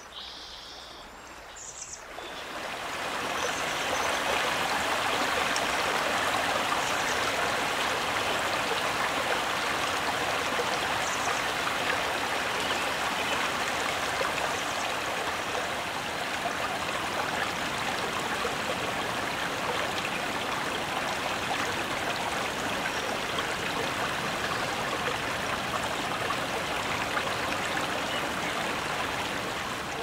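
Rushing water of a cascading stream, a steady full hiss that swells in over the first few seconds and eases off near the end.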